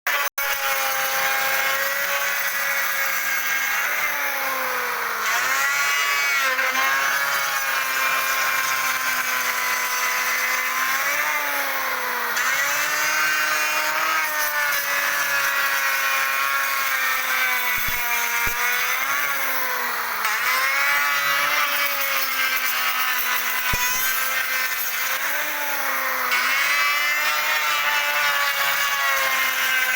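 Electric wood router running with a steady high motor whine, its pitch sagging and recovering again and again as the bit is fed into and cuts the wood.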